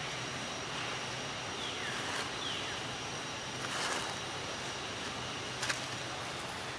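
Outdoor ambience with a steady hiss and brief rustles of dry leaves as the macaques shift about, two faint short falling chirps about two seconds in, and a single sharp click near the end.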